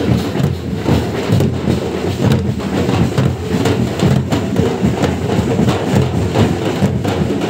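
Loud procession drumming: many fast, sharp drum strokes over a dense rumble of crowd noise.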